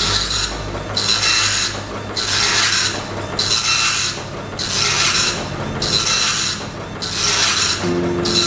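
Epson LX-310 dot-matrix print head printing line by line, a buzzing rasp for each pass across the paper, about one pass a second with short pauses between. The head now travels freely after repair of its jammed movement, running the self-test print started by holding the Load/Eject button at power-on.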